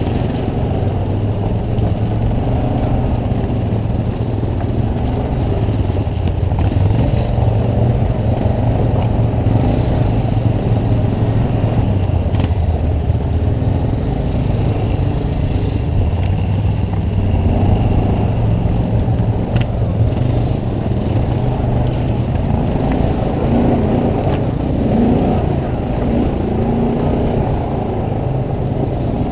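ATV engine running under way, its pitch rising and falling with the throttle, most clearly in the last few seconds.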